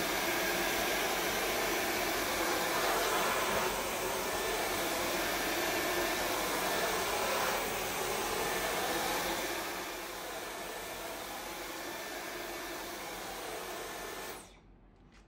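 Cordless stick vacuum cleaners running, a steady motor-and-airflow rush with a faint whine. The sound shifts in level about 4 and 7.5 seconds in, drops a little at about 10 seconds, and cuts off shortly before the end.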